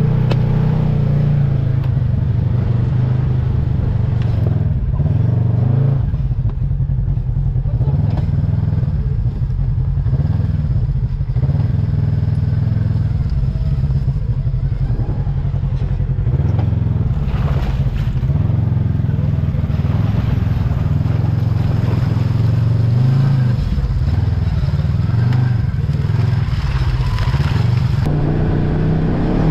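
Side-by-side UTV engine running steadily under way, with small changes in engine speed and the occasional brief crackle over the top.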